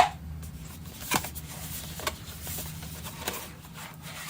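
Box and plastic tray of a screwdriver kit being handled: a sharp click at the start, then a few lighter taps and rustles.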